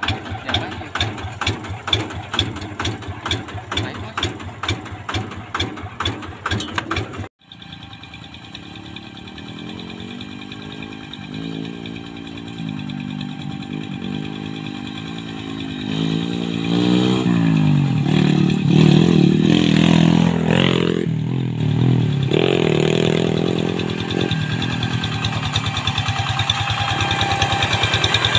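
Tractor diesel engine running with a fast, even chugging beat, cut off abruptly about seven seconds in; an engine then runs again with its pitch rising and falling as it is revved, louder in the second half.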